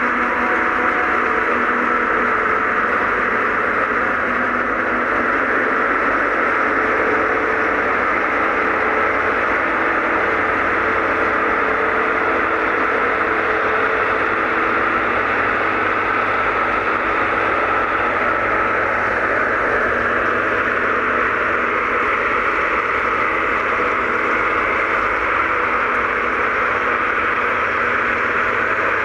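Claas Jaguar 870 self-propelled forage harvester running under load, chopping maize and blowing it through the spout into a trailer, with a tractor running alongside: a steady, heavy mechanical drone.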